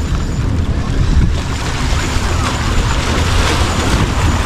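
Wind buffeting the microphone with a steady low rumble, over small waves washing against the rocks at the foot of a seawall, the wash growing a little louder in the second half.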